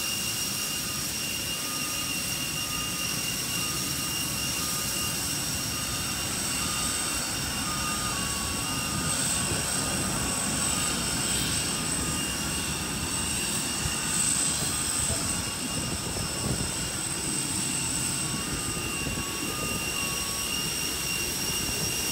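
Steady jet turbine whine over a low rumble, with several high steady tones. A faint beeping repeats at two alternating pitches.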